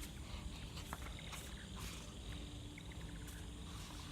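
Faint chirping of night insects over a low steady hum, with a few light clicks.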